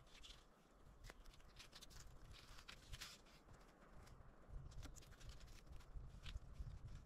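Near silence with faint, scattered small clicks and rustles.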